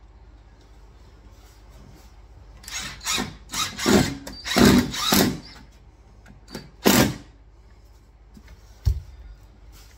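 Makita cordless impact driver driving screws to fix a wall-cabinet hanging bracket, in several short loud bursts about three seconds in and one more burst about two seconds later. A single short knock comes near the end.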